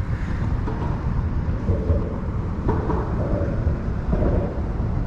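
Wind buffeting the microphone outdoors: a steady, uneven low rumble.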